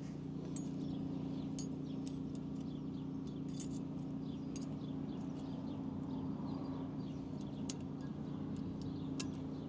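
Faint metallic clicks and clinks of spring-steel brake pad clips being fitted into a rusty brake caliper bracket, with a steady low hum underneath.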